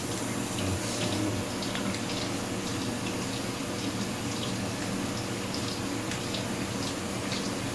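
Tap water running steadily into a sink over a low steady hum, with faint scattered ticks.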